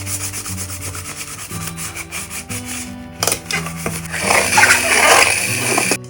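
Scrubbing a surface by hand, a continuous rough rubbing that grows louder and harsher for about a second and a half near the end before stopping abruptly. Soft background music plays underneath.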